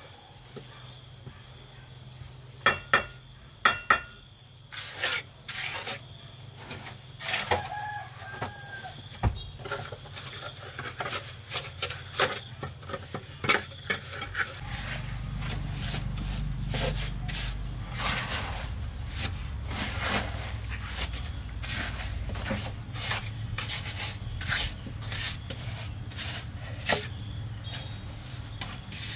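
Steel mason's trowel scraping and knocking on wet cement mortar and concrete blocks: repeated short scrapes and taps. A steady high insect whine runs underneath, a chicken calls a few times in the first several seconds, and a low hum comes in about halfway.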